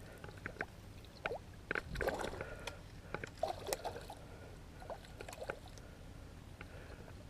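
Water splashing and dripping in short bursts, mixed with small clicks and knocks, busiest in the first four seconds.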